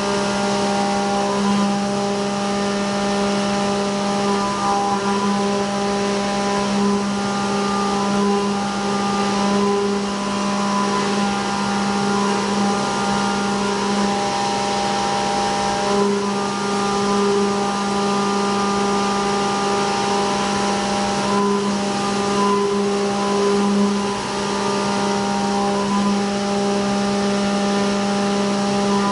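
CNC vertical mill's end mill cutting a pocket on a traditional 2.5D racetrack toolpath: a loud, steady cutting tone with a strong low hum and its overtones over the hiss of the cut and flying chips, wavering slightly now and then.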